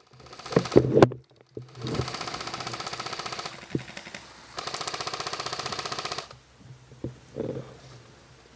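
Two full-auto bursts from an M4 airsoft electric gun, each a rapid even rattle of the gearbox cycling lasting about a second and a half, with a gap between them. A few loud knocks come just before the first burst.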